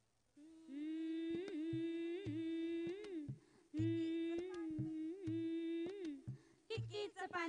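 A singer's voice holding a long, steady note with small turns in pitch, twice over, in a Marathi folk song; the drum and the rest of the music come back in near the end.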